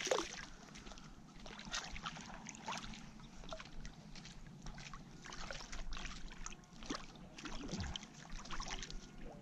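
Hooked striped bass thrashing at the water's surface as it is drawn in to the bank: repeated splashes and sloshes of water, the loudest right at the start.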